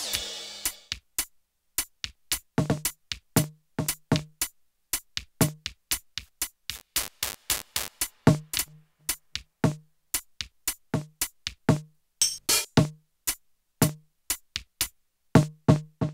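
Electronic drum and sampler sounds played live with sticks on pads: a loose, uneven pattern of short, sharp hits, many with a low pitched thump, separated by dead silence. A noisy sweep dies away in the first half second.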